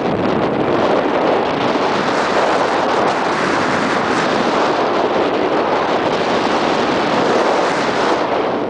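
Wind rushing over the camera microphone: a loud, steady rush of noise that thins a little in its higher part near the end.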